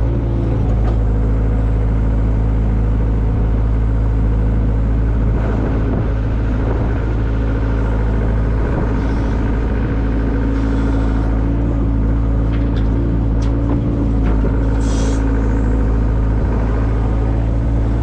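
Diesel engine of heavy farm machinery running steadily at a constant speed, with a few short clicks and knocks and a brief hiss about fifteen seconds in.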